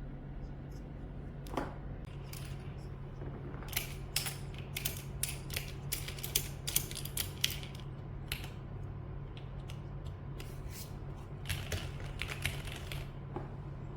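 Mechanical keyboard keys and keycaps clacking in irregular runs: a cluster of clicks in the middle and another near the end, over a steady low hum.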